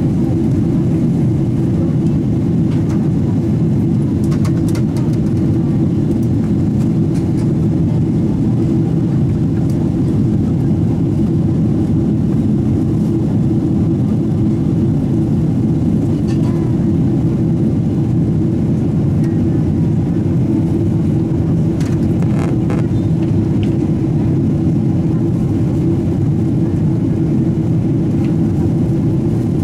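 Steady cabin noise inside a Boeing 777-200 in flight: an even, low roar of engines and airflow. A few faint clicks come through it, about four seconds in and again past the twenty-second mark.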